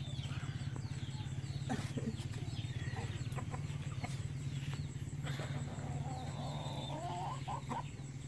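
Chickens calling again and again in short, high, falling notes, with a few light knocks of firewood being pushed under the pot, over a steady low hum.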